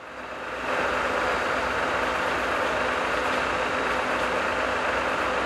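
Steady rumble and hum of idling vehicle engines, fading in over the first second.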